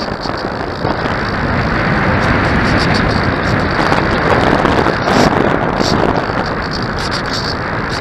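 Wind rushing over the microphone: a loud, even rush with gusty swells and no motor tone.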